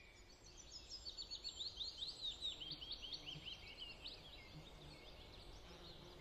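Faint songbird singing: a quick run of high, sweeping chirps that starts about half a second in and stops after about four and a half seconds, over a quiet outdoor background.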